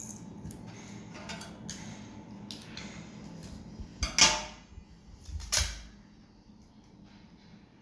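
Adhesive tape being handled: crackling rustles, with two louder, brief rips of tape about four and five and a half seconds in.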